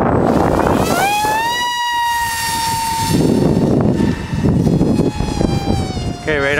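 A Turnigy 3659 1900kv brushless motor on a Funjet Ultra RC plane, spinning an APC 6.5x6 pusher propeller at full throttle. It makes a high whine with many overtones that rises quickly about a second in, then holds steady and fades as the plane climbs away. Further on the whine returns fainter and slowly falls in pitch, wavering near the end, with wind noise on the microphone between.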